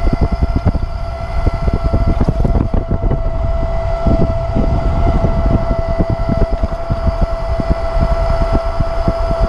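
Wind buffeting the microphone on an Uberscoot 1000 W 36 V electric scooter cruising at about 20–22 mph, over a steady high whine from the scooter's electric motor holding top speed.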